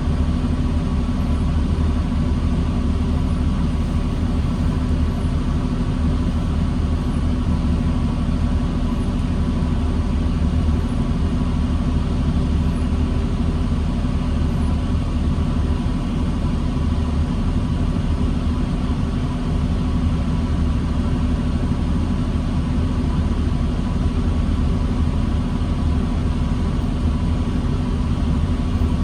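Diesel engine of a 2009 New Flyer D40LFR transit bus heard from inside the bus, running with a steady, unchanging drone and no revving.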